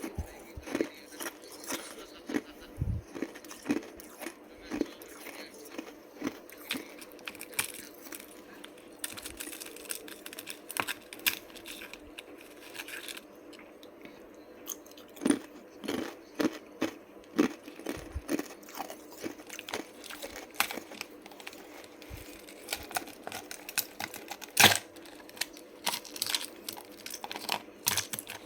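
A person biting and chewing ice, with many sharp, irregular crunches; the loudest crunch comes about 25 seconds in.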